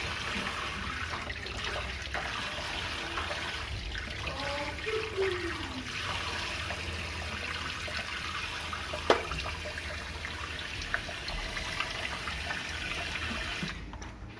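Kitchen tap running in a steady stream into a stainless steel sink, splashing over a live eel being rinsed by hand. One sharp knock about nine seconds in, and the water stops shortly before the end.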